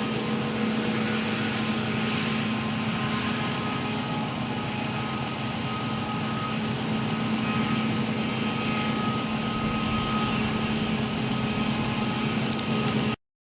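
Diesel farm machinery running steadily under load, a constant low hum with a high whine over it, cutting off abruptly near the end.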